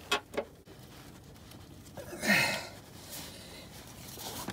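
A man's short, breathy grunt of effort, falling in pitch, about two seconds in, as he pulls the serpentine belt onto the alternator pulley. It comes after two faint knocks at the start.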